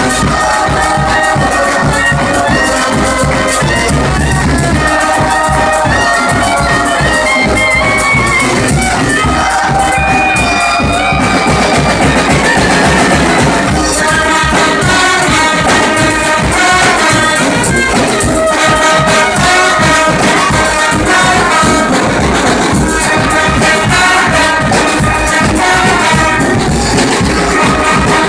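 Brass band playing live: horns carrying a melody in held and moving notes over a steady drum and percussion beat.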